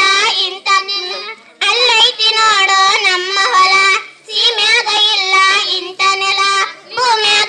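A child's high voice singing a Kannada folk song in three long phrases, with wavering held notes and short breaks between them.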